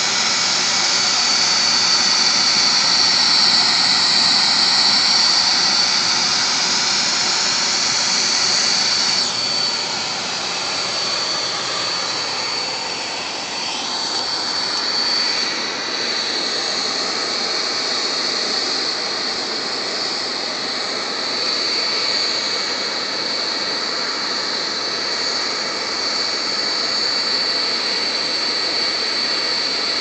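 A flowerpot furnace under a hair dryer's air blast: a steady rushing of forced air and flame with a high whine running through it. It eases off a little about nine seconds in.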